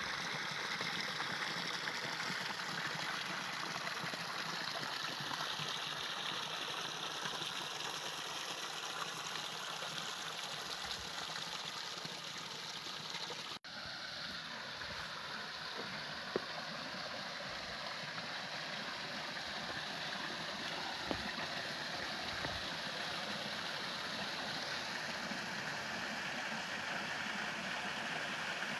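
Steady rushing of flowing water from a stream or waterfall, broken by a momentary cut about halfway through.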